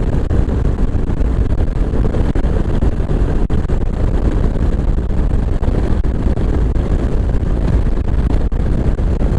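Kawasaki KLR 650's single-cylinder four-stroke engine running steadily at cruising speed, with wind noise over the microphone.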